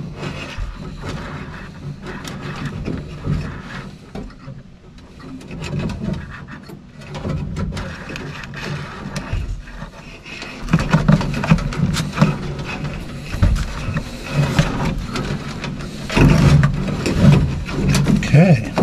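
A bundle of electrical wires being pulled and pushed through a hole in a car's rear floor panel by hand: rustling, scraping and light clicks against the sheet metal, busier in the second half. A low, indistinct man's voice comes in now and then.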